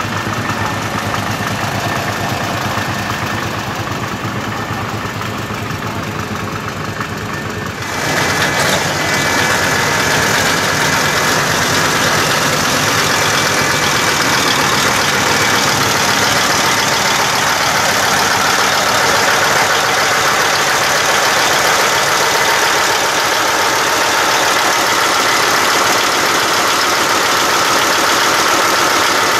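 Tractor engine running steadily; about eight seconds in the sound suddenly gets louder, with more hiss, and stays at that level.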